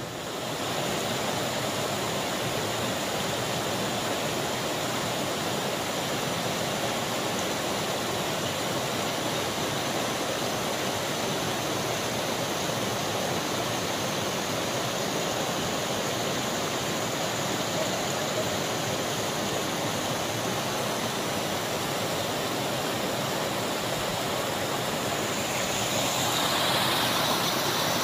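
Steady rush of water from the Dudh Dhara waterfall on the Narmada river, growing a little louder and brighter near the end.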